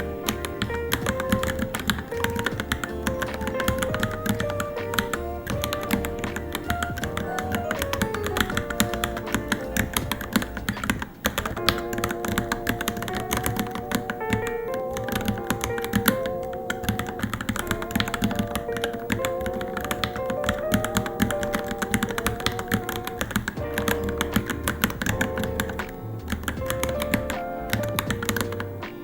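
Continuous fast typing on a Varmilo Minilo mechanical keyboard: a dense, even clatter of keystrokes with a brief pause near the middle, over background music with a melody.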